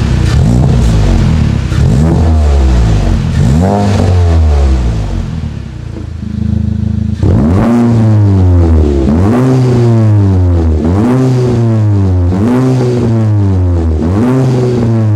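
Volkswagen Golf 8 GTI's 2.0-litre turbocharged four-cylinder revved repeatedly while standing still, through an Armytrix turbo-back valvetronic exhaust. First a few revs with the exhaust valves closed, a short dip toward idle around the middle, then about five loud, quick revs, each rising and falling, with the valves open.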